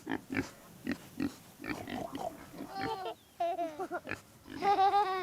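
Pigs grunting and oinking: a run of short grunts, then longer, higher calls in the second half.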